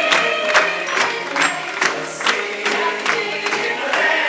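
A stage musical number: pit orchestra with ensemble voices, over sharp regular beats about three times a second.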